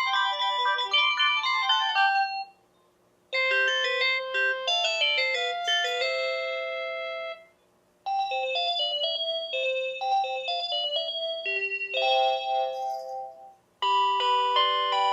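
Panasonic KX-TGA101CS cordless phone handset playing its built-in ringtone melodies through its speaker, one after another. There are four short electronic chime melodies, each cut off with a brief silence before the next begins.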